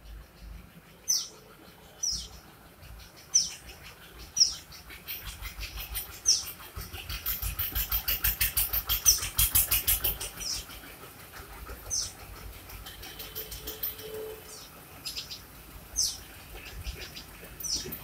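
A small bird repeats a short, high, falling chirp about once every one to two seconds. From about six seconds in until about ten seconds in, a loud rapid run of clicks, about five a second, sounds over it.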